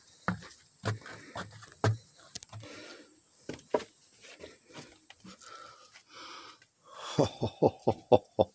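Footsteps on wooden stair treads going down into a cave: a few dull thuds in the first two seconds, scattered knocks and scuffs, then a quick run of sharp knocks near the end.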